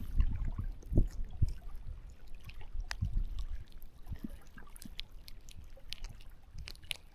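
Low rumbling handling noise with scattered small clicks and knocks as a freshly caught small redfin is held and handled, with faint trickling water under it.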